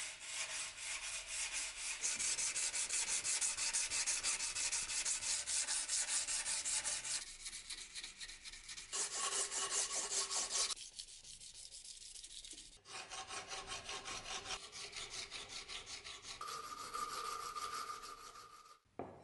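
Steel dagger blade clamped in a vise and sanded by hand: fast, even back-and-forth strokes of abrasive scraping over the metal, in several short stretches.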